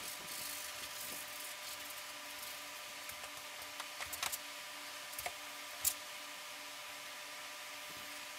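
Paintbrush working on a canvas: soft strokes near the start, then a few light taps and clicks about halfway through, over a steady hiss and faint electrical hum.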